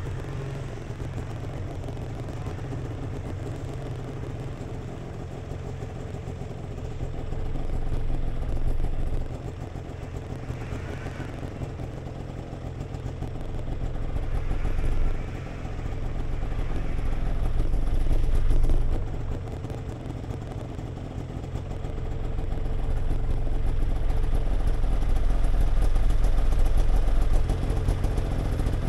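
Snowmobile engine running, its revs rising and falling several times, the longest and loudest surge near the end, as the machine sits stuck in deep snow.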